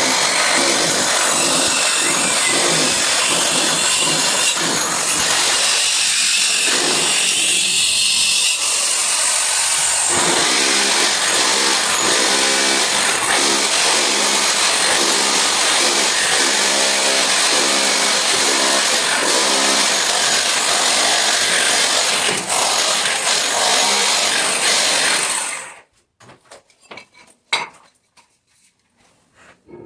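A power tool cutting under load, loud and continuous, its pitch shifting as it works. It stops abruptly near the end, leaving a few faint clinks.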